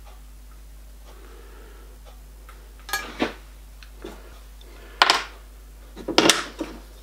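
Small steel parts handled on a workbench: a few light metallic clinks and taps, a pair about three seconds in, one near five seconds and a short cluster just after six.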